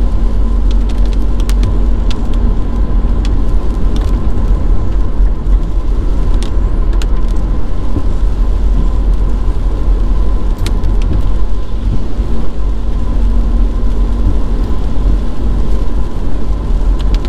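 VW Caddy driving, heard from inside the cabin: a loud, steady low rumble of road and engine noise with a few faint clicks.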